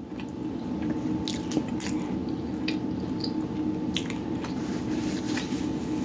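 A person chewing a mouthful of soft falafel taco with lips closed: wet, squishy mouth sounds with a few sharp clicks, over a steady low hum.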